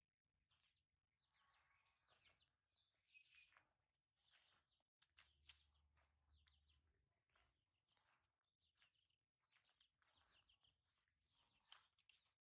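Near silence with faint, scattered high chirps.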